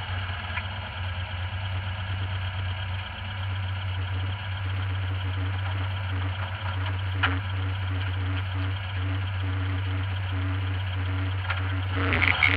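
Air-cooled 1.6-litre flat-four of a VW TL 1600 rally car idling steadily, heard from inside the cabin. There is a single sharp click about seven seconds in, and the sound grows louder near the end.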